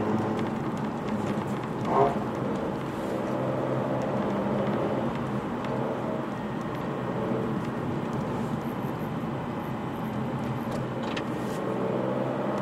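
Nissan Fairlady Z34's 3.7-litre V6 running steadily under way with tyre and road noise, heard from inside the cabin. There is one short knock about two seconds in.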